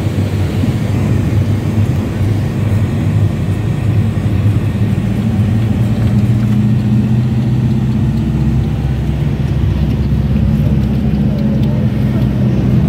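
Passenger van driving, heard from inside the cabin: a steady low engine and road drone.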